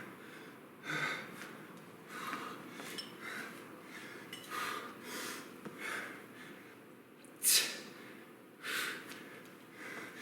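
A man breathing hard from exertion while working a kettlebell through clean, lunge and press reps. He takes short, sharp breaths about once a second, the loudest about seven and a half seconds in.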